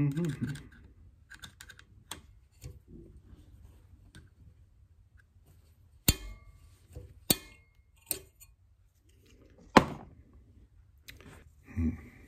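Scattered sharp clicks and knocks as the parts of a Snider-Enfield rifle are handled and fitted back together, with the loudest click about ten seconds in and a dull thud near the end.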